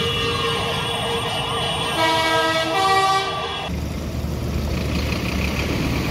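Several vehicle horns held down together in a long, sustained chord, the notes shifting about two and three seconds in, then cutting off abruptly. A low, steady rumble of passing tractor engines follows.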